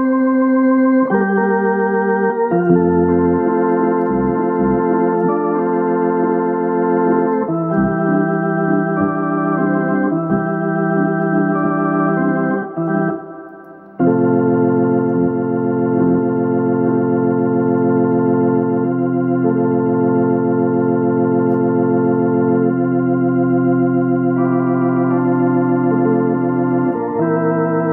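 Hammond C3 tonewheel organ playing a tune in sustained chords over held bass pedal notes. Just before the midpoint the sound fades away for about a second, then comes straight back in.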